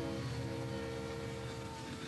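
Model train running past with a steady low rumble, with a few held tones over it that change pitch and fade near the end.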